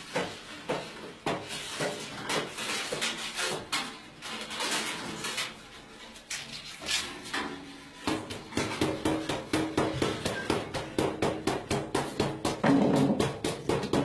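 Metal objects struck and knocked repeatedly, with a ringing pitch. The strikes are scattered and uneven at first. About eight seconds in they turn into a fast, steady run that grows louder.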